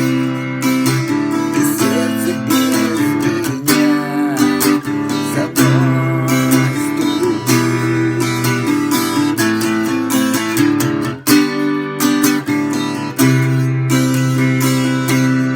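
Music: strummed acoustic guitar playing chords.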